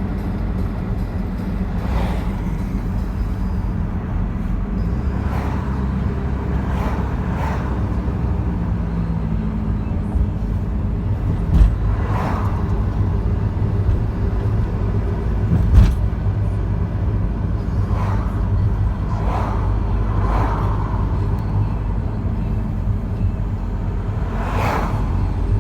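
Z19DT four-cylinder turbodiesel running with a GT1756 turbo breathing through an open Ramair induction kit. A short whoosh of turbo flutter comes every couple of seconds, about ten in all, over a steady engine rumble. There are two brief thumps, one a little before halfway and one about four seconds later.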